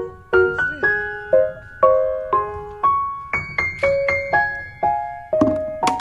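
Background piano music: a gentle melody of single notes, about two a second, each ringing and fading.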